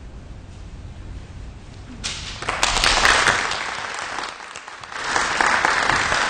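Congregation applauding, starting suddenly about two seconds in over a low room hum, easing off briefly, then picking up again.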